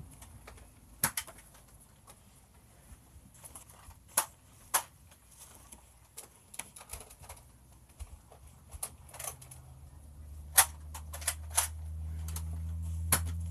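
Scattered sharp clicks and snaps from toy dart guns being handled and fired, some single and some in quick clusters. A low steady hum comes in from about ten seconds in.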